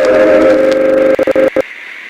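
A loud, steady horn-like tone with several pitches sounding together, which stutters and cuts off abruptly about one and a half seconds in, leaving a steady hiss.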